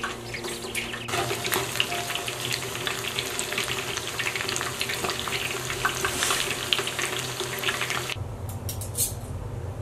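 Batter-coated chicken wings deep-frying in hot oil in a stainless saucepan: a dense, steady sizzle full of small crackling pops. It cuts off sharply about eight seconds in, leaving a low hum and a few clicks.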